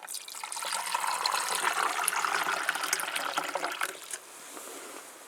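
Liquid pouring steadily for about four seconds, then tapering off.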